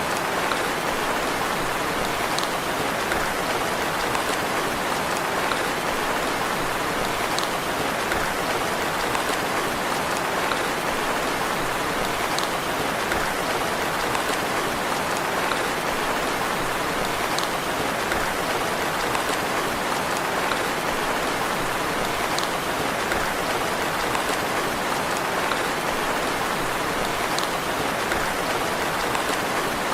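Steady gentle rain, an even hiss of falling drops, with a faint drip-like tick recurring about every five seconds.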